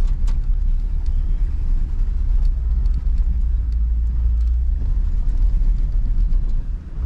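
Jeep engine and drivetrain rumbling low and steady as it crawls in four-low through snow, heard from inside the cab, easing off briefly near the end.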